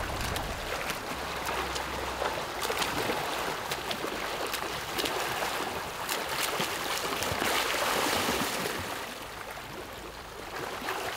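Pool water churned by swimmers' freestyle strokes: a steady wash of splashing with many small quick splashes, fading a little near the end.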